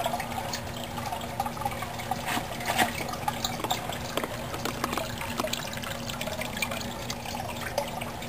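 Water trickling and splashing steadily from a homemade rain-gutter filter into a fish pond, flowing rather than gushing. There are many small irregular splashes and a steady low hum underneath.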